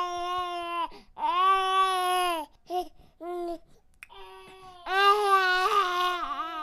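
Infant crying: two long, steady wails, then a couple of short cries near the middle and a longer, wavering wail in the second half.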